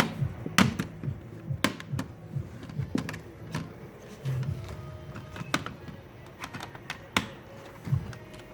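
Irregular sharp clicks and taps of hard plastic and small parts being handled as an HP Pavilion g4 laptop is taken apart, more frequent in the first half.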